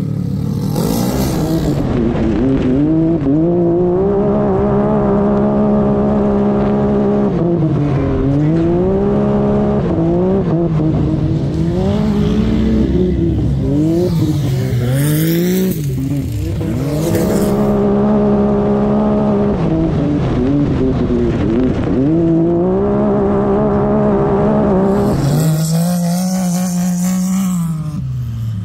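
Side-by-side UTV engines running hard under race throttle, the pitch climbing and dropping again and again as the machines speed up and slow.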